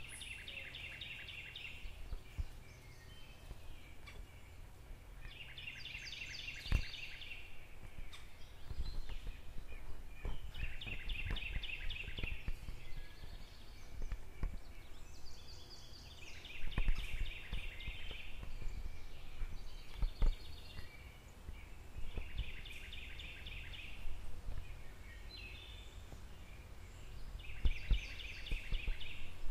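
Outdoor ambience: a high, rapid trilling call, each about a second and a half long, repeats about every five and a half seconds over a steady low rumble, with a few soft thumps.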